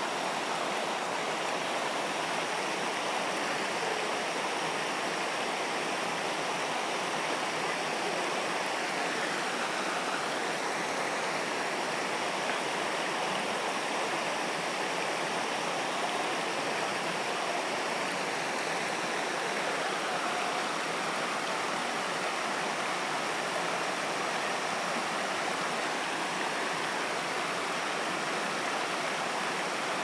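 Shallow rocky stream flowing over stones: a steady rush of running water.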